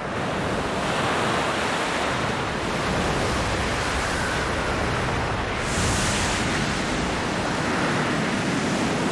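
Heavy ocean surf breaking on a rocky shore: a steady wash of crashing waves, with a sharper hiss of spray about six seconds in.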